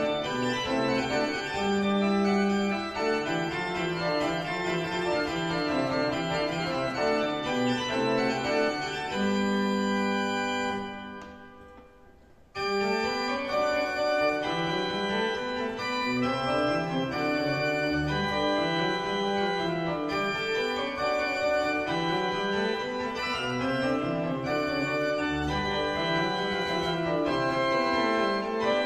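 A 1657 Fedrigotti pipe organ playing a keyboard piece in several voices. About ten seconds in, a held chord ends and dies away over about two seconds in the church's reverberation, and after a brief pause the playing starts again.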